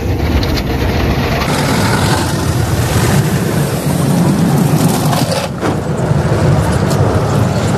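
Automatic tunnel car wash working over a car, heard from inside the car: a loud, steady rush of water and machinery noise with a heavy low rumble.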